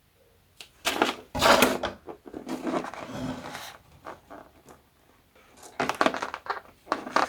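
Funny balloons filled with glue and beads being moved around and set down on a table: two spells of soft knocks and rustling, with a short pause between them.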